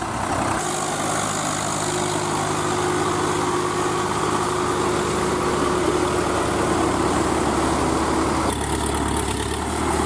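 Diesel tractor engines running steadily. The engine sound shifts abruptly about half a second in and again near the end.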